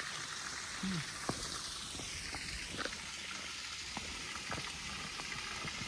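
Steady rushing hiss of a small waterfall heard from above, with a few light taps scattered through it.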